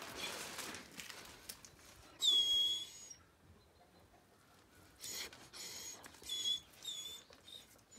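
A dog whining in short, high-pitched bursts: one loud whine about two seconds in, then several shorter ones in quick succession in the second half. Close sniffing comes first.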